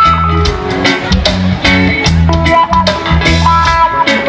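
Live rock band playing an instrumental passage: two electric guitars, keyboard and drum kit over a steady beat.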